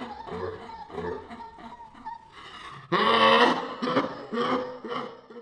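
Men laughing heartily, with the loudest burst of laughter about three seconds in.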